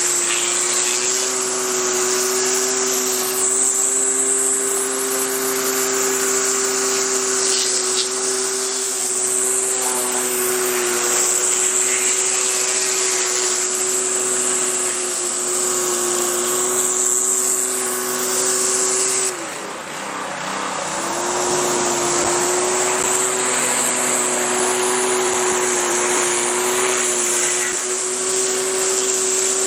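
Westinghouse WPX3400 gas pressure washer running steadily under load, its 212cc four-stroke engine humming under the hiss of high-pressure water spray. About 19 s in, the engine tone and the spray briefly drop out, then pick back up and run on.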